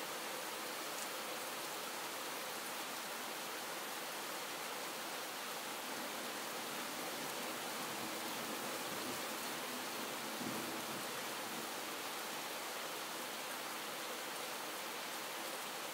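Calm, steady rain falling, heard as an even hiss that does not let up.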